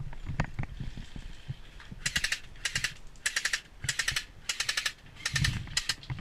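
Airsoft electric gun (AEG) firing about seven short full-auto bursts in quick succession from about two seconds in, each a rapid string of clicks.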